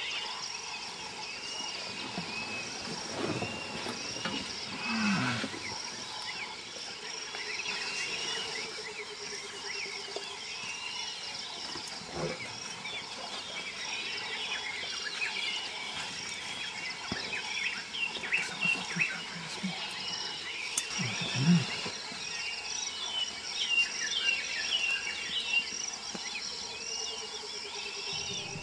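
Savanna bush chorus: a steady high insect drone with many short chirping calls throughout. A few low rumbling calls from the African elephants crossing come about three to five seconds in and again around twenty-one seconds.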